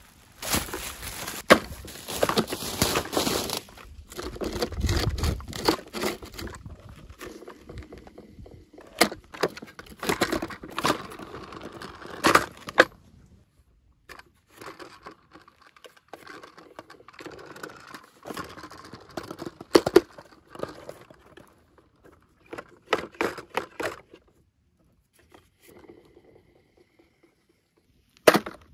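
Clear plastic wrapping crinkling and rustling as it is pulled off a plastic toy tractor, in irregular bursts mixed with sharp clicks and knocks from handling. The crinkling is busiest for the first dozen seconds, then comes in shorter bursts with quiet gaps.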